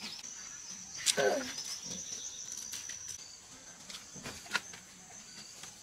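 Cucumbers being picked off the trellised vines, with a sharp snap about a second in and another near the end, and leaves rustling. A steady high thin whine runs through the first half.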